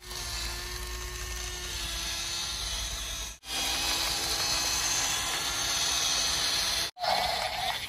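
Small electric gear motors of radio-controlled toy construction vehicles whirring steadily, with a faint hiss. The sound breaks off briefly twice and starts again.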